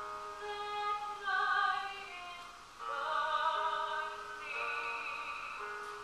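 A woman singing long held notes with vibrato, accompanied by a grand piano.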